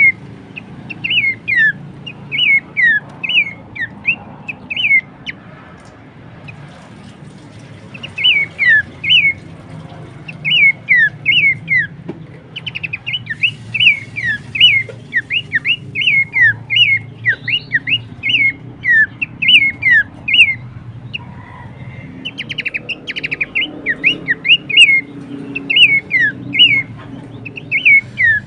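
Pelanduk semak babbler calling: rapid runs of short, falling whistled notes, with a gap of a couple of seconds after about five seconds, then calling again almost continuously.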